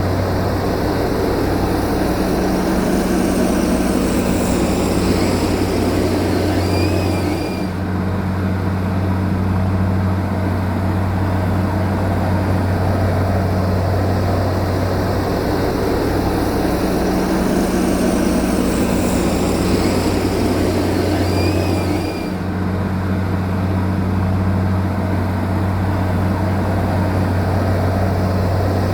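Bulldozer's diesel engine running steadily: a deep, constant hum with a wash of mechanical noise above it. The upper noise dips briefly twice, about fifteen seconds apart.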